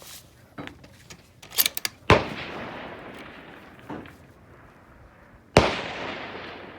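Two precision rifle shots about three and a half seconds apart, each followed by a long echo rolling away down the range. A few lighter clicks come just before the first shot.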